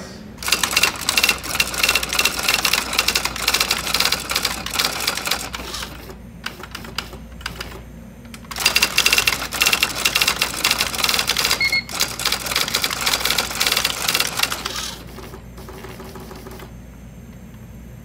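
Electronic typewriter printing lines of text: two long runs of rapid print strikes, each about six seconds, with a few scattered strikes between them. After the second run only a faint steady hum is left.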